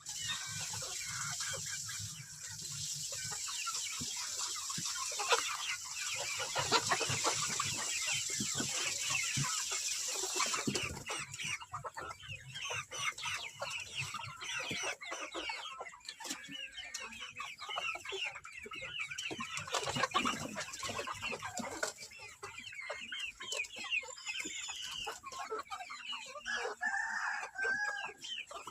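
A flock of chickens clucking and calling, many short calls overlapping. A steady hiss sits under the first eleven seconds or so, then stops.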